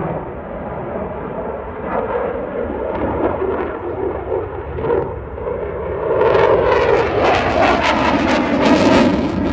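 Eurofighter Typhoon's twin Eurojet EJ200 turbofan engines: a steady jet rumble that swells about six seconds in into a louder, crackling sound as the fighter comes closer.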